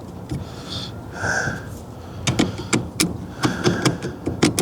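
Hand tools and metal steering-column parts clicking and knocking irregularly as a bolt is threaded in. A brief squeak comes about a second in, and the clicks grow busier from about two seconds on.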